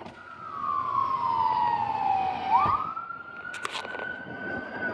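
Dallas Fire-Rescue ambulance siren on a wail: one long falling tone, then a quick sweep back up about halfway through, held high near the end.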